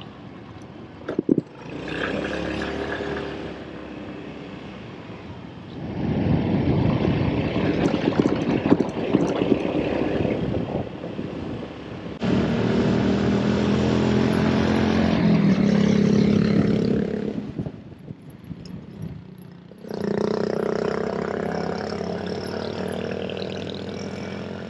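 Motor scooter engine running while being ridden, with wind and road noise. The sound changes abruptly in level several times, and the engine's pitch rises and falls with speed.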